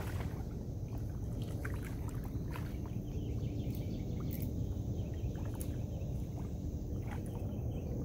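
A hooked catfish thrashing and splashing at the water's surface as it is reeled in to the bank, irregular splashes and clicks over a steady low rumble.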